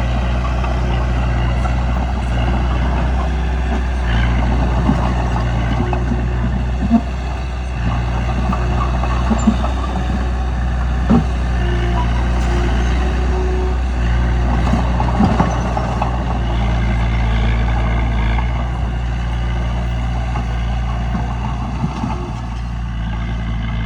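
Bulldozer diesel engine running steadily under work, with a few sharp knocks over it.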